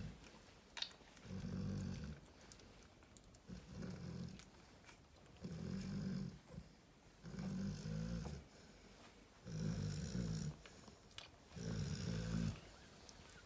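Cane Corso snoring: a low snore about every two seconds, six in a row.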